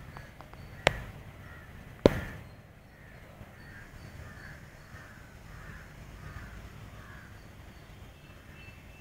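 Two sharp knocks in the first two seconds, then a crow cawing in a run of about seven caws, each about half a second apart.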